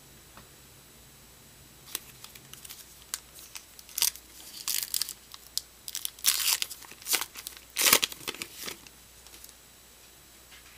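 A foil trading-card pack wrapper being torn open and crinkled by hand: a quick run of sharp tearing and crinkling noises lasting several seconds, loudest near the end.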